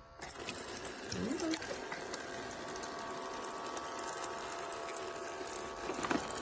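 Small battery-powered pump of a toy play sink whirring steadily, with water running from its faucet into the basin. A short rising sound comes about a second in, and a knock near the end.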